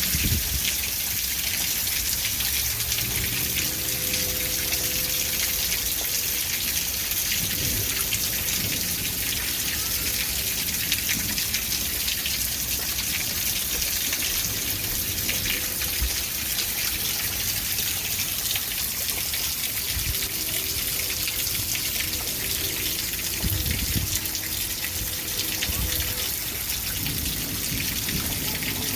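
Steady rain, a dense continuous patter of drops falling on surfaces.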